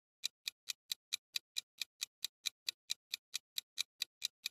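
Countdown-timer clock-ticking sound effect: quick, even ticks, about four and a half a second, starting a moment in and marking the time left to answer.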